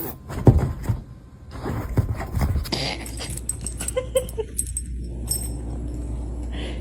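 A dog gives a few short whimpers about four seconds in, among scattered clicks and knocks.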